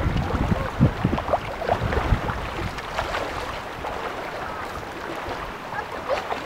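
Wind rumbling on the microphone in gusts, strongest in the first two seconds and easing after, over a shoreline ambience of calm water.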